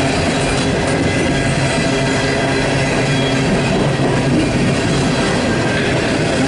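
Empty steel coal cars of a freight train rolling past close by: the steady, loud rolling noise of steel wheels on the rails.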